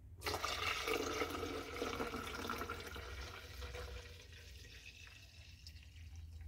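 Water being poured from a plastic jug into an espresso machine's plastic water tank, splashing onto the descaling solution already in it as the tank is filled for descaling. The pour starts suddenly, is loudest in the first two or three seconds and grows quieter after about four seconds.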